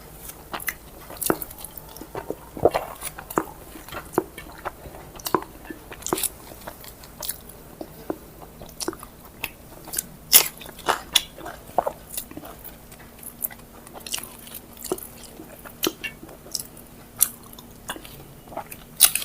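Close-miked eating: wet chewing and lip smacks, many short irregular clicks from mouthfuls of rice.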